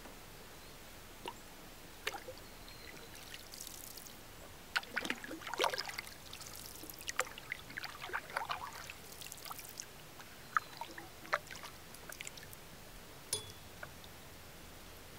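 Wooden canoe paddle stroking through calm lake water, with gurgling and splashing through the middle. Near the end, water drips off the raised blade.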